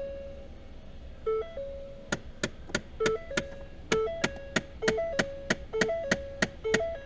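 Rapid clicking from a failing blend door actuator inside a Ford Fiesta's dash, about three sharp clicks a second, starting about two seconds in. A two-note tone repeats about every second and a half underneath.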